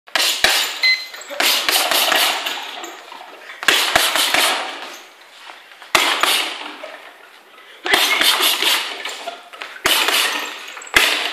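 Boxing gloves hitting a floor-to-ceiling ball in quick flurries of sharp smacks, the ball snapping back on its cord between punches. There are about seven flurries, with a short pause between each.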